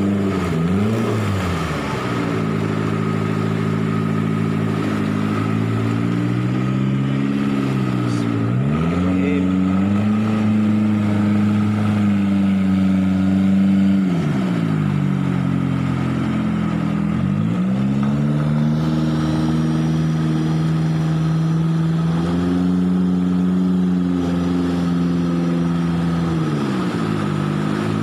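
Toyota Avanza car engine driving a jet-drive longtail river boat, running hard. Its revs drop and climb back several times, holding steady in between.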